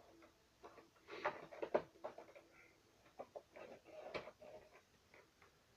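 Faint handling noise of a small vinyl Funko Pop figure being turned over in the hands: scattered soft clicks, knocks and rustles, the loudest about a second and a half in and again about four seconds in.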